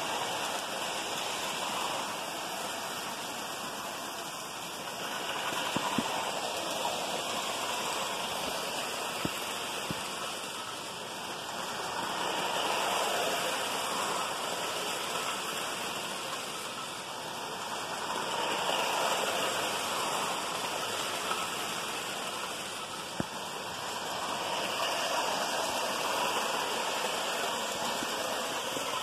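Lionel model trains running on three-rail tinplate track, a steady whirring rush of motors and wheels that swells about every six seconds as a train passes close by. A few faint clicks sound now and then.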